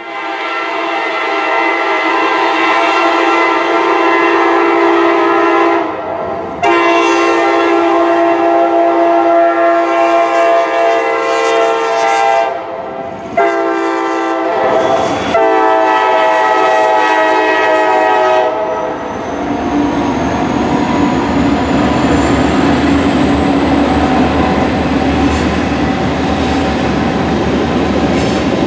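Freight locomotive's multi-chime air horn sounding long, long, short, long, the grade-crossing signal. Then the train rolls past with wheels clattering over the rail joints and a thin high squeal slowly rising in pitch.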